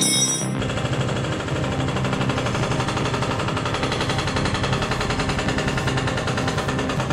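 Rapid, even machine-gun-like rattle of a frame straightener's air-over-hydraulic pump running, driving the pulling tower to draw out the damaged rear quarter panel on the chain. It starts about half a second in, with background music underneath.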